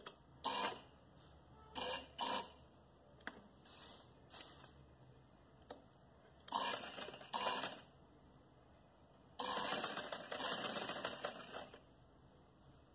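Sewing machine stitching in short runs of a few stitches each, then a longer run of about two seconds near the end.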